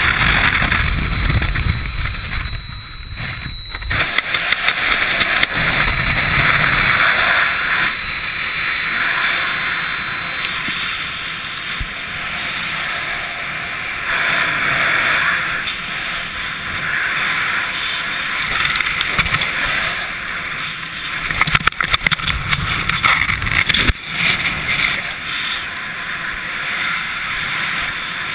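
Wind buffeting a skydiver's camera microphone in a steady, uneven rush that swells and fades, with a run of sharp crackles a little after two-thirds of the way through.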